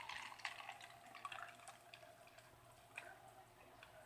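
Faint fizzing of carbonated Coke, with small scattered crackling ticks.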